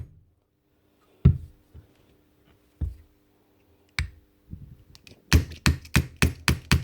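Sharp knocks on the metal hammer mechanism of a DeWalt DCH333 rotary hammer: three spaced knocks, then a quick run of about six at roughly four a second. The striker inside is stuck.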